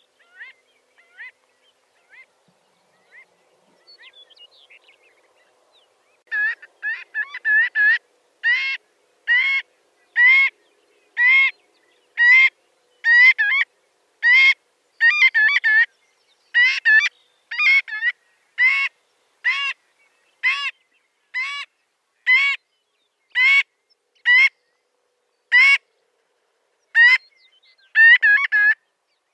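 Marbled godwits calling. A few faint calls come first; then, about six seconds in, a long series of loud, repeated calls starts, roughly one a second, with quick rapid runs of calls near the start of the series and again near the end.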